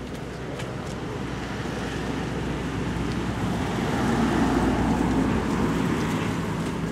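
A motor vehicle passing off-camera: its engine and road noise build to a peak about two-thirds of the way through, then fade.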